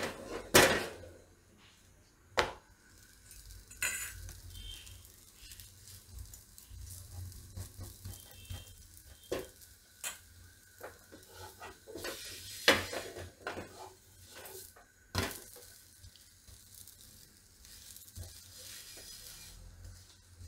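Slice of bread toasting in ghee on a non-stick tawa, with a faint sizzle. A few sharp knocks and scrapes of a metal spatula against the pan stand out.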